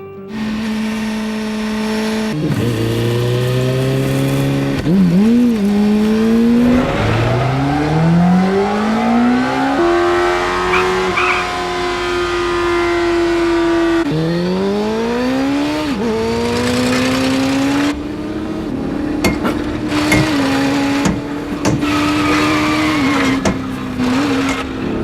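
Car engine revving hard under acceleration, its pitch climbing and then dropping sharply several times as it shifts up through the gears.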